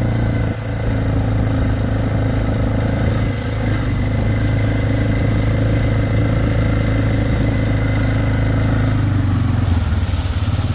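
Four-wheeler (ATV) engine running steadily at low riding speed, its pitch dropping near the end as it slows.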